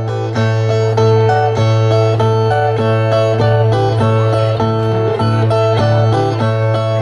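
Nordestino violas playing a plucked instrumental break between the sung verses of a repente, a quick run of picked notes over a steady low tone.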